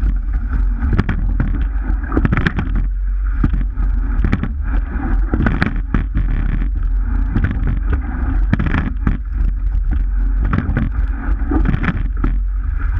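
Rowing shell under way: water rushing along the hull and wind rumbling on the camera microphone, with a knock from the oars and rigging every one to three seconds, in time with the strokes.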